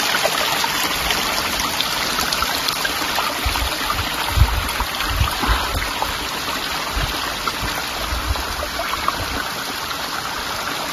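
Running water of a mountain stream: a steady rushing noise.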